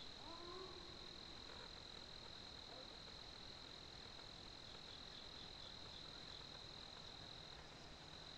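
Night insects, such as crickets or katydids, trilling steadily as one constant high-pitched drone over faint hiss.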